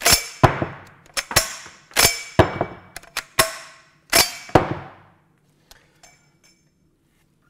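Action of an Enfield ARWEN 37 rotary riot gun being cycled: a series of sharp metallic clacks with ringing, many in pairs about a second apart, as the trigger is released, the bolt slides back and the five-round carousel springs round to the next chamber. The clacks stop after about five seconds, leaving only a few faint ticks.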